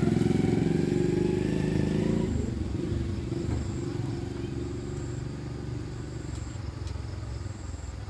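Small motorbike engine idling. It is loudest at first, and after about two seconds it settles into a quieter, lower running that fades gradually.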